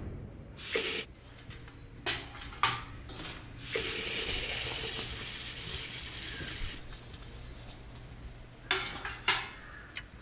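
Kitchen tap running into the sink for about three seconds, with short clinks and clatters of dishes being washed before and after.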